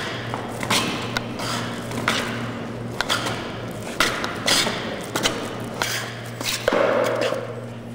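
Bricks worn under the feet knocking and scraping irregularly on a concrete floor as the wearer steps and dances, with a longer, louder sound a little before the end.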